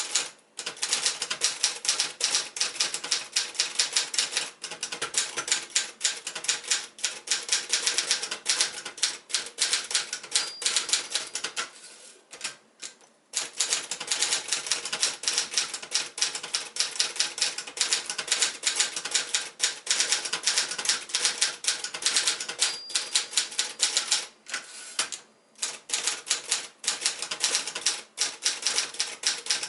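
1978 Adler J5 manual portable typewriter being typed on quickly, a rapid run of keystroke clacks with a short break about twelve seconds in.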